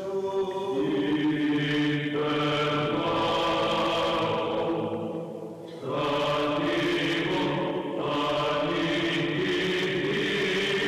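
Orthodox church chant: voices singing long held notes over a steady low drone. The chant fades about five seconds in and starts again abruptly about a second later.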